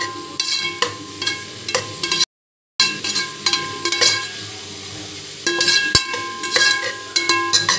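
A slotted metal spoon stirring and scraping frying masala in an aluminium pressure cooker, knocking against the pot again and again so that the metal rings after each knock, with a light sizzle of oil underneath. The sound cuts out completely for about half a second a little after two seconds in.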